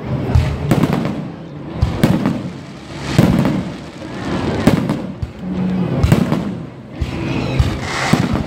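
Aerial fireworks shells bursting in quick succession: more than a dozen sharp bangs, with a dense fizzing haze between them.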